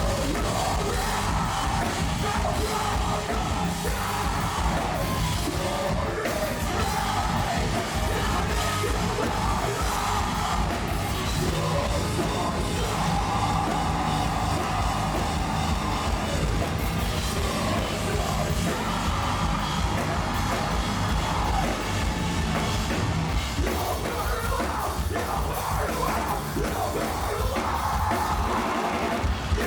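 Heavy metal band playing live, with screamed vocals over dense distorted guitars and pounding drums. The full band comes in abruptly at the start.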